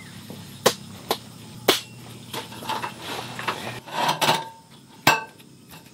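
Metal parts of a folding camp table knocking and clattering as it is assembled and its roll-up slat top is laid onto the frame. Three sharp knocks in the first two seconds, a rattling clatter in the middle, then one sharp knock near the end.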